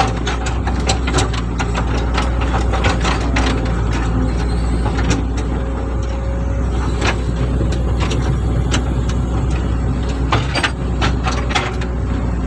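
Hitachi excavator's diesel engine running steadily under load, with many short, sharp cracks and clicks scattered through it.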